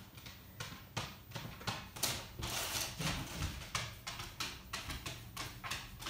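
Soft, irregular clicks and taps, several a second, from applying liquid lip colour with its wand applicator, over a faint steady low hum.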